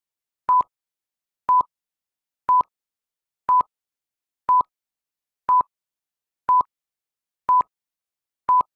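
Short electronic beeps at one steady pitch, one every second, nine in all with silence between them: a quiz countdown timer counting off the time to answer.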